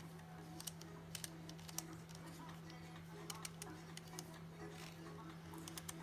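Scattered faint clicks and taps of small tools on the stuck lens's metal aperture parts, over a steady low hum.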